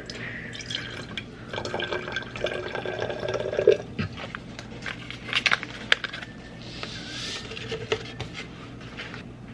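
Clear liquid poured in a thin stream into a glass salad-dressing cruet, the filling sound stopping about four seconds in, followed by a few sharp clicks.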